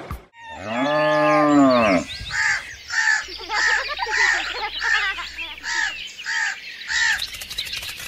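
A cow moos once, a long call rising and falling in pitch. Then a crow caws over and over, about two caws a second.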